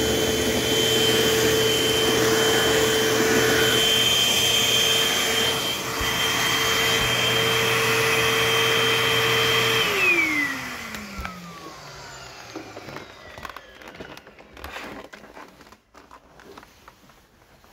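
Eureka AirSpeed AS1101 multi-cyclonic upright vacuum running with a steady motor whine. It is switched off about ten seconds in, and the whine falls in pitch as the motor spins down. A few faint clicks of handling follow.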